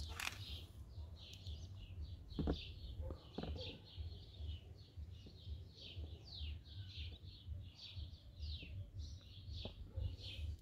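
Small birds chirping outdoors: many short, falling chirps in quick succession over a low rumble, with two sharp clicks about two and a half and three and a half seconds in.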